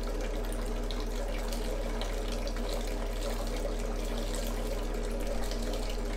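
Chilled wort running from a hose into a stainless steel fermenter, splashing and frothing steadily as it aerates, with a steady low hum underneath.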